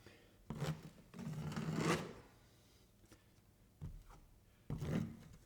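Drywall knife scraping joint compound across the wall, several separate strokes, the longest about one and a half to two seconds in.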